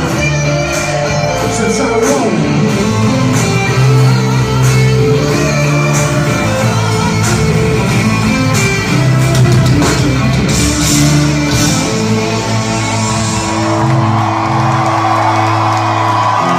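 Live rock music from a band with guitar and bass notes and drums, with some shouting over it, echoing in a large hall.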